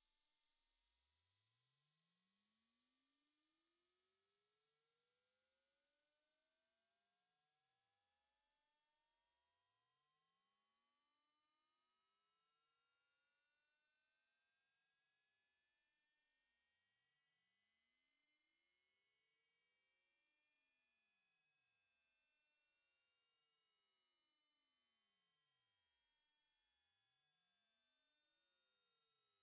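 Hearing-test tone: a single high, pure sine tone gliding slowly and evenly higher in pitch at a steady loudness, a frequency sweep for finding the upper limit of one's hearing.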